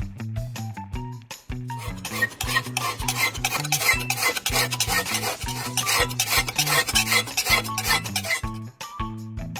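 Background music with a steady beat and repeating bass notes. From about two seconds in until shortly before the end, a scraping, rubbing noise runs over the music.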